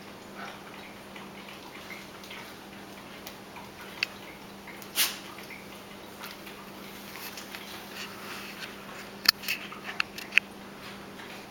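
Golden retriever puppy and adult golden retriever play-wrestling on a hardwood floor: quiet scuffling with scattered sharp clicks and knocks, several close together near the end.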